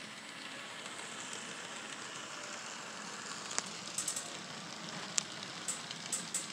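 N scale model train running along the layout track: a steady hissing rumble of wheels and motor, with scattered sharp clicks from about halfway through.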